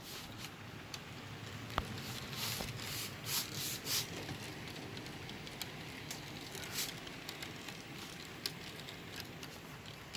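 HO scale model train running on the track, with wheels clicking over the rail joints and a low rumble, and a few short hissing bursts a few seconds in.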